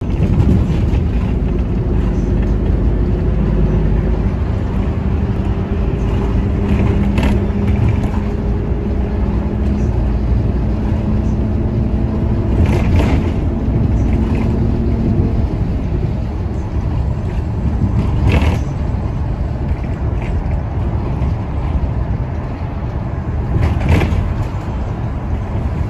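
Steady low rumble of a city bus's engine and tyres heard from inside the cabin while it drives along. A steady hum runs under it and fades out about halfway through, and four brief knocks are spread across the ride.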